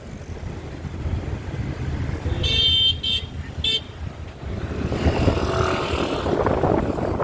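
Street traffic with wind rumbling on the microphone; a vehicle horn toots three short times about two and a half to four seconds in. A louder rushing noise then builds through the rest.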